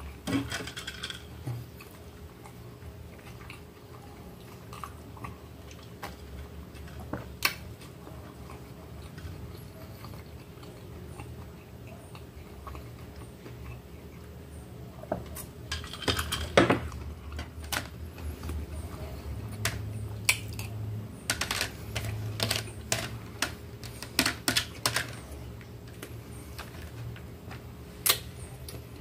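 Eating at a table: scattered clicks and taps of a metal spoon on a plastic plate and of a plastic cup being handled, with chewing. The clicks come thicker past the halfway point.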